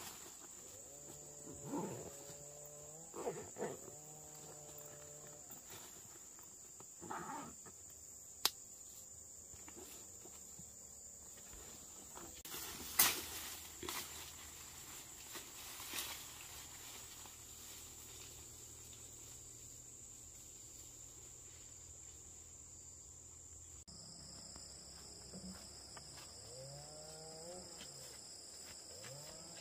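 Insects (crickets or cicadas) calling in one steady, high-pitched drone, with a second insect joining in about two-thirds of the way through. A few sharp clicks and rustles stand out, about a third and halfway through.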